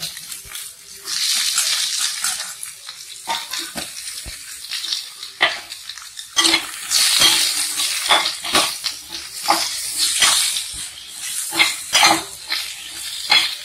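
Brinjals, drumstick pieces and green chillies sizzling as they are dropped into hot oil in an aluminium pressure cooker, with many sharp knocks of pieces landing and of stirring against the metal pot.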